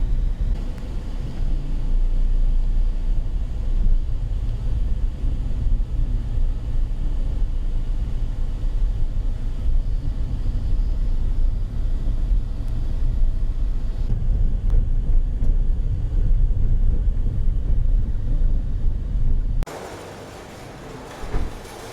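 Steady low rumble of a vehicle in motion. It cuts off suddenly near the end to a much quieter background.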